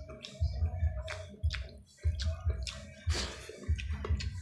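Close-miked wet chewing and lip-smacking of a man eating soft, fatty boiled pork hock and rice by hand, with soft thuds in time with his chewing and sharp wet clicks.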